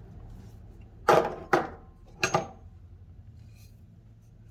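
Steel hammer heads knocking and clinking against a hard surface as they are set down and picked up. There are three sharp knocks, about a second in, half a second later, and once more near the middle. The last leaves a brief metallic ring.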